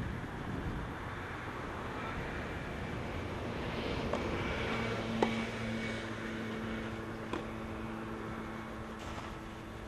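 A steady engine hum comes in about halfway through, over outdoor background noise, with a few sharp knocks of a tennis ball struck by racket during a rally on a clay court; the loudest knock falls about five seconds in.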